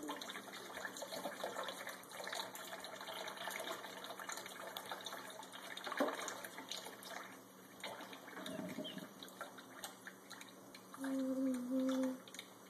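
Thin stream from a running kitchen tap trickling into shallow water in a stainless steel sink, with light splashing from ducklings swimming in it. A short low hum sounds twice near the end.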